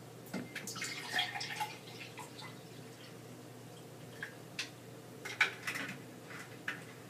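Apple juice poured from a glass bottle into a drinking glass, with faint splashing and gurgling, busiest in the first couple of seconds. Near the end a few light clicks as the bottle cap is handled.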